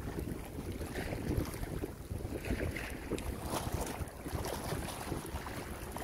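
Wind buffeting the microphone in uneven gusts, over choppy water lapping.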